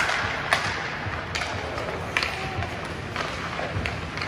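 Youth ice hockey play: a few sharp clacks of sticks and puck over the steady scrape of skates on the ice.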